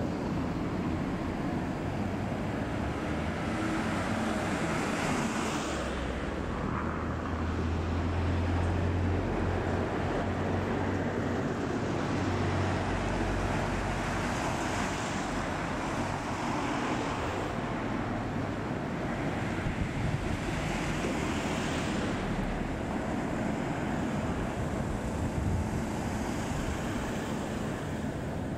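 Road traffic on a city street: cars passing one after another, several swelling and fading over a steady noise. There is wind noise on the microphone.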